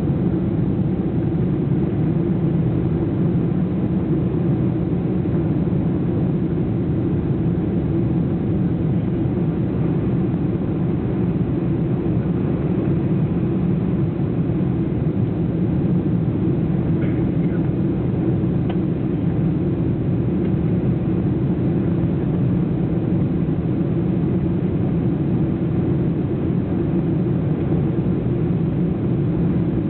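Steady, unchanging drone of a jet airliner's engines and rushing air during the landing approach.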